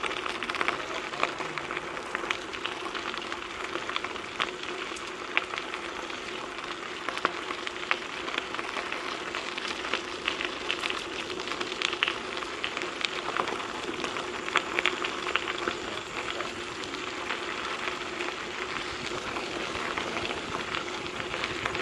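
Trek 4500 mountain bike tyres rolling over a gravel trail: a steady crunching hiss, dense with small ticks and pops of stones under the tyres.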